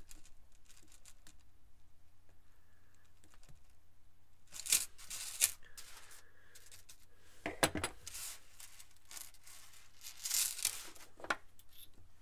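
Blackened stainless steel chainmail rings clinking and jingling as a maille patch and loose rings are handled and linked, in several short bursts with small clicks in between.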